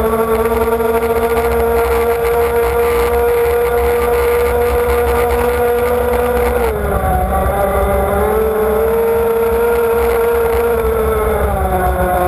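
Radio-controlled model powerboat's engine running at high revs, heard from a camera on the boat's deck, with water and wind noise. Its pitch dips briefly about seven seconds in, then drops again near the end as the boat turns.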